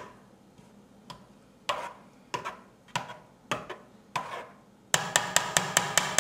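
A spoon knocking against a pot while meat sauce is stirred, single knocks about every half second, then a quick regular run of about five taps a second near the end.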